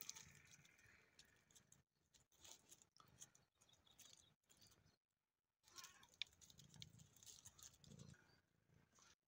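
Near silence: faint outdoor background with a few soft scratches and clicks.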